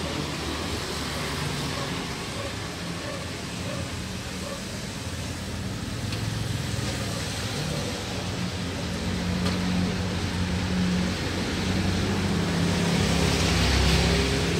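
Steady low engine-like rumble with a hum, growing a little louder near the end.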